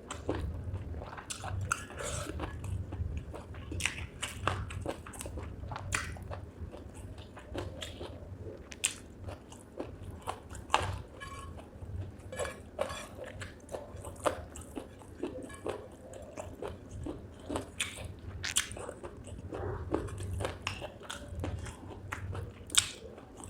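Close-miked chewing and biting of spicy chicken gizzard with rice: irregular wet crunches and clicks of the mouth, over a low steady hum.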